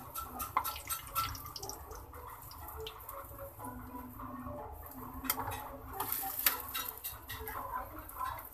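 Gram-flour fritters deep-frying in hot oil in a wok, the oil crackling and sizzling with many quick ticks, while a metal slotted spatula scrapes and clinks against the pan as the browned fritters are scooped out.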